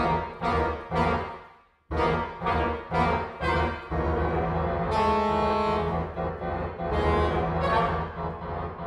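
Two soprano saxophones playing a duet: short, repeated accented notes about twice a second that fade and break off briefly about two seconds in, then resume. From about four seconds in they change to long held notes over a steady low tone.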